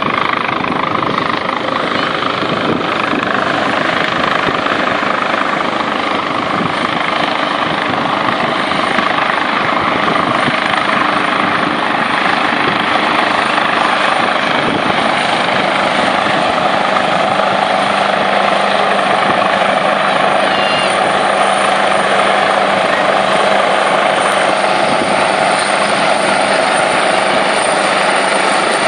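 Coastguard search and rescue helicopter hovering low over the sea, a steady, unbroken noise of rotors and engines.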